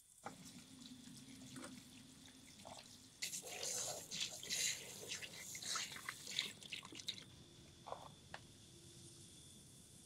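Water from a small tap running and splashing onto vegetables in a plastic basin, with small knocks and rubbing as they are rinsed by hand. The splashing is loudest from about three to seven seconds in, then eases to a few clicks.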